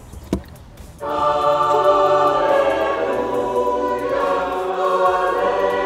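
Background music with choral singing comes in suddenly about a second in and carries on at a steady level. Before it there is a brief click.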